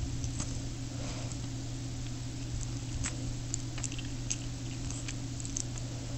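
A steady low hum, with faint, irregular small clicks and taps scattered through it.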